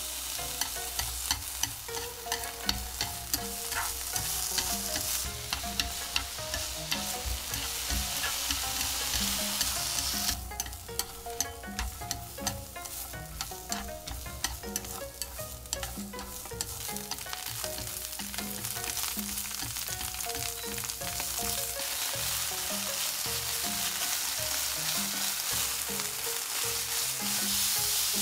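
Julienned vegetables and beef strips sizzling in oil in a non-stick frying pan while being stir-fried, with frequent sharp clicks of chopsticks tapping the pan. The sizzle drops away about ten seconds in, leaving mostly clicking, then grows steadily louder toward the end as the beef fries.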